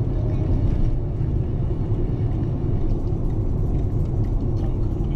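Steady low rumble of a car on the move: engine and road noise, even throughout.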